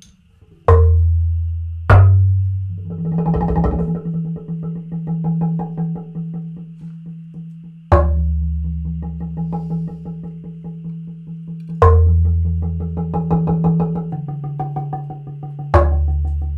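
Live percussion on wooden planks struck with a soft mallet: a quick, even run of pitched wooden strokes, broken by five heavy strikes whose deep tone rings on for a few seconds each.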